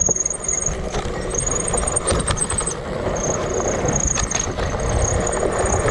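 Fat-tire mountain bike rolling over a dirt and leaf-covered trail: a steady rumble of the knobby tyres and wind buffeting the bar-mounted camera. A thin high-pitched buzz cuts in and out, and there are a few brief knocks from bumps.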